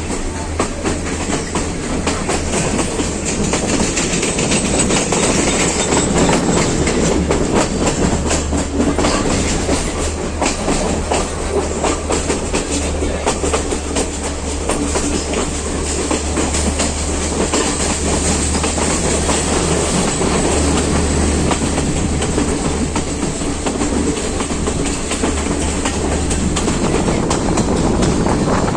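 Train running along the track: a steady low rumble and rushing noise, with frequent clicks from the wheels over the rails.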